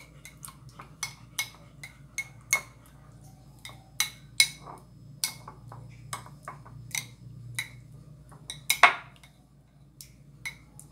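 A utensil clinking and tapping against a plate while stirring jam with water to thin it into a sauce. There are irregular sharp clinks, a few a second, with one louder clink a little before the end.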